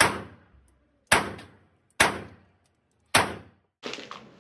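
Four pistol shots at an indoor range, about a second apart, each with a short echoing tail. Near the end, a quieter rustle of handling.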